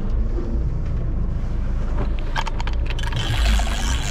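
Steady low rumble of a fishing boat on open sea, with water sounds against the hull. There is a short run of clicks about two and a half seconds in.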